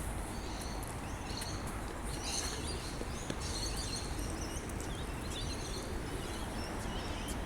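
Several small birds chirping and calling on and off, over a steady low background rumble.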